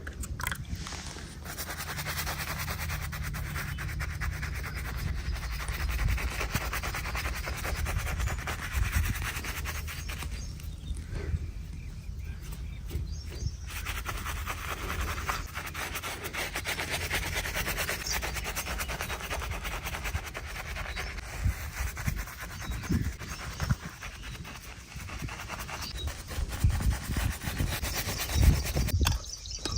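Barber's razor scraping through hair and stubble on skin in repeated close strokes, with a short pause about a third of the way in.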